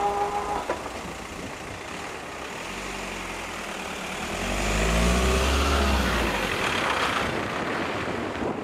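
The crossing's electronic warning bell, an AŽD ZV02, ends its steady ringing tone with a click about half a second in. Then a turbo-diesel van's engine rises in pitch as it accelerates past and over the crossing, with tyre noise.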